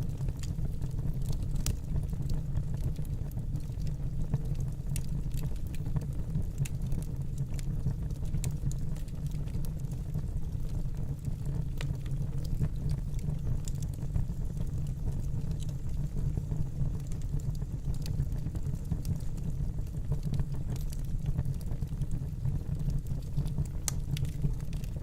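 Wood fire burning in a fireplace: a steady low rumble of the flames with scattered, irregular sharp crackles and pops.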